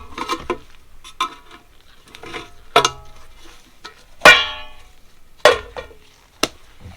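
Small metal carburetor parts clinking against each other and a hard surface, each clink ringing briefly; about five clinks, the loudest about four seconds in.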